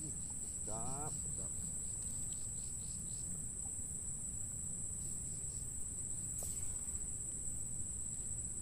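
Steady high-pitched drone of insects, with a faster pulsing chirp over it for the first second or so.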